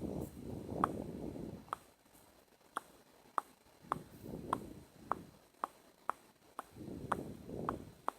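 Close-miked ASMR mouth sounds: a run of short, sharp tongue and lip clicks, about two a second, with softer breathy mouth noise at the start, middle and end.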